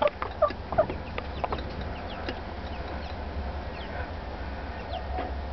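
A hen clucking: a few short clucks in the first second and a half, then softer ones.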